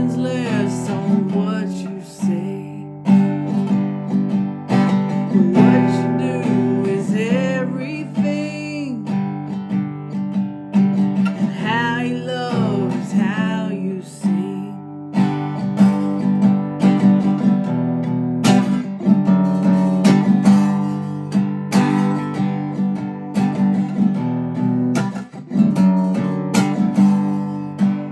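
Song with strummed acoustic guitar throughout. A singing voice carries the melody in stretches during the first half, and the rest is guitar alone.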